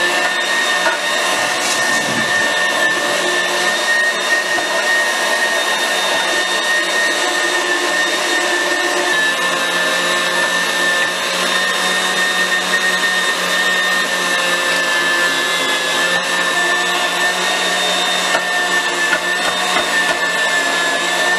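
KitchenAid 300-watt Ultra Power stand mixer running steadily with its fruit/vegetable strainer attachment, a loud motor drone with a high whine, while whole tomatoes are pushed through it and pressed into puree.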